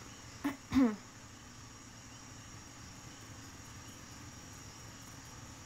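A brief voice sound, two short syllables with the second falling in pitch, under a second in; otherwise a steady low background hiss with a faint, constant high-pitched whine.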